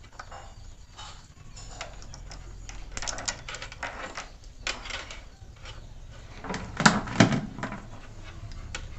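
PVC insulating tape being pulled off its roll and wound round a cable: a series of short tearing pulls, the loudest two about seven seconds in.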